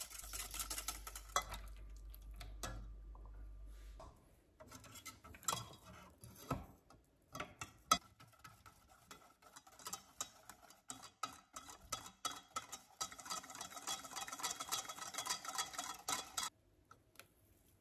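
A wire whisk beating eggs and flour into pancake batter in a stainless steel pot, its wires clicking rapidly against the metal sides. There is a stretch of sparser clicks in the first half, then steady fast whisking that stops shortly before the end.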